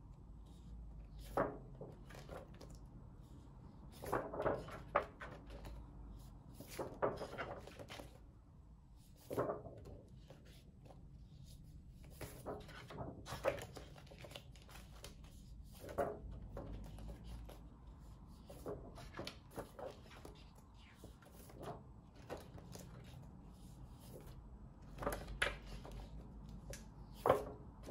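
A stack of large letter flashcards in plastic sleeves being handled and flipped, with short rustles and taps every few seconds over a faint steady room hum.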